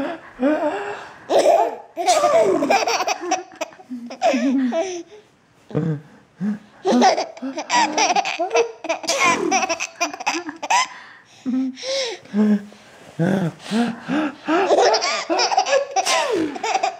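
A young child laughing hard in repeated fits, with short breaks to catch breath.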